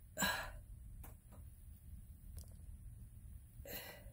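A woman's breath: a sharp hissy exhale just after the start and another near the end, with a few faint clicks between.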